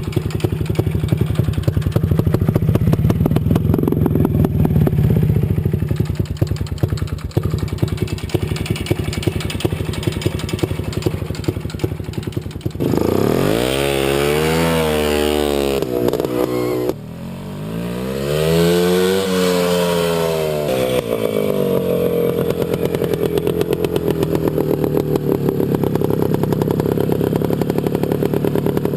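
1968 WSK M06 B1 motorcycle's single-cylinder two-stroke engine idling with a fast, even beat, then revved twice about halfway through, the pitch rising and falling each time. It then settles into a steady, slightly faster idle.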